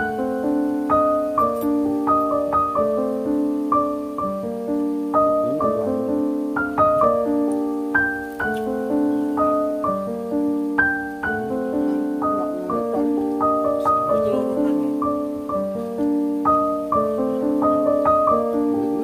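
Background instrumental music: a soft piano melody of evenly paced, ringing notes.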